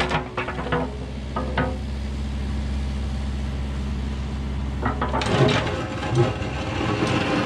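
Kubota mini excavator's diesel engine running steadily while the steel bucket works the ground, with a few sharp knocks in the first second or two and a rougher stretch of scraping and clatter near the end.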